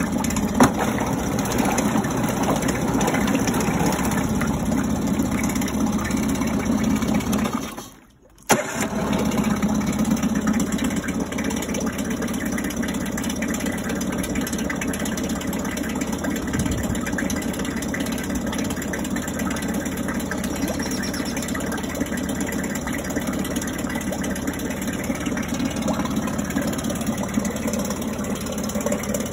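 Mercury 15 hp four-stroke outboard running steadily in a test tank of water, its leg churning the water in the bin. About eight seconds in, the sound drops out briefly and comes back with a sharp click.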